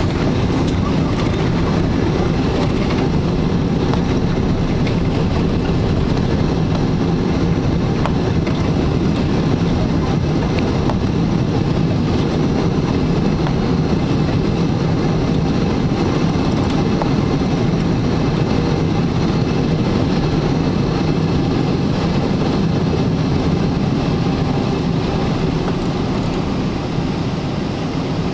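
Airliner landing: a loud, steady rumble from the engines and airframe with no distinct tones, easing off slightly near the end.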